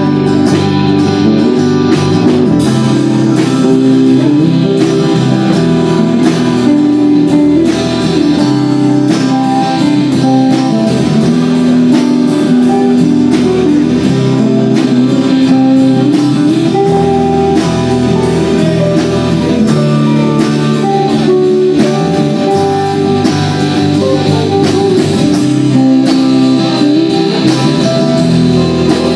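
Live band playing: guitars over a drum kit keeping a steady beat.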